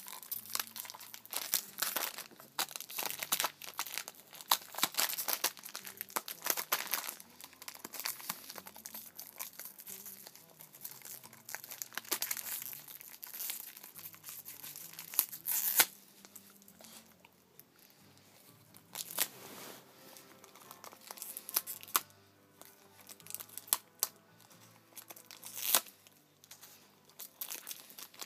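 A dog chewing and tearing at the plastic wrapper of a piece of gum, the plastic crinkling and crackling irregularly. The crackles come thick and fast for the first half, then thin out with short quiet gaps.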